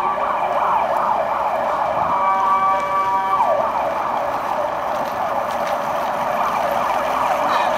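Emergency vehicle siren sounding in fast, repeating yelp sweeps, with a steady blaring tone held for about a second and a half around two seconds in.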